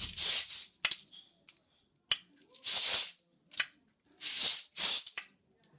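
Morse code played as sound: short sharp clicks from objects knocked together for the dots, and longer hissing noises of about half a second each for the dashes, with short silences between the signs.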